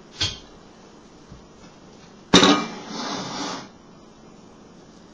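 A short knock, then about two seconds in a person coughing loudly for just over a second.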